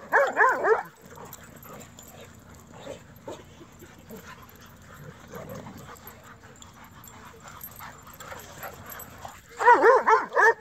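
Dogs playing together: a quick run of high-pitched barks in the first second and another near the end, with quieter, lower-level sound between.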